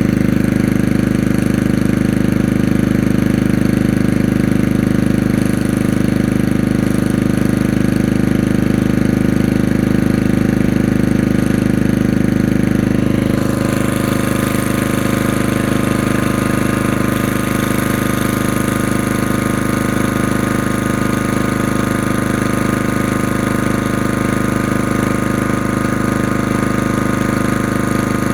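Portable generator's small engine running steadily. About halfway through its sound shifts slightly and drops a little in level.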